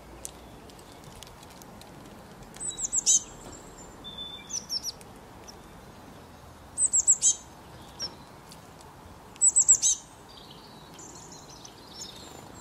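Small songbird calling: short runs of three or four quick, high chirps, each falling in pitch, four times over, with some fainter twittering near the end, over a faint steady hiss.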